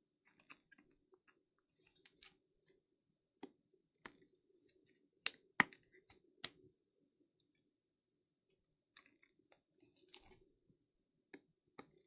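Trading cards being slid into plastic top loaders and handled: scattered faint clicks and short rustles of plastic and card, two sharper clicks about halfway through.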